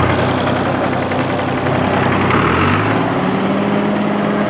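New Holland tractor's diesel engine idling, then revving up about two and a half seconds in and holding the higher engine speed.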